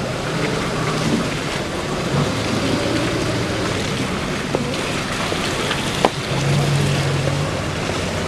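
Wind rushing over the microphone, with a faint low hum that swells about six and a half seconds in, and a sharp knock at about six seconds.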